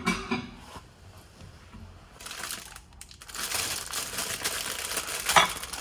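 Plastic wrapping being crinkled and handled: a short spell about two seconds in, then a longer stretch of dense crackling lasting about three seconds.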